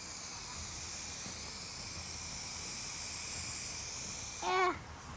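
Aerosol spray-paint can hissing steadily as white paint is sprayed onto a canvas, cutting off abruptly about four seconds in. Right after it, a brief high-pitched voice.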